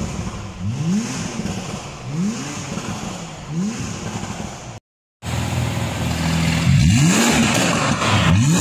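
Porsche 991.2 911's flat-six engine running through a TNEER aftermarket exhaust, blipped from idle in short revs about once a second, each rising and falling straight back to idle. The revving breaks off for a moment halfway through, then resumes with more blips.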